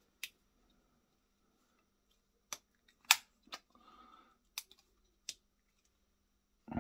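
Sharp metal clicks of an antique tap-action flintlock pistol's lock being worked by hand, the cock clicking into its half-cock and full-cock notches; about six separate clicks, the loudest about three seconds in. The folding trigger is failing to release the cock from either notch, which the owner puts down to the trigger's spring.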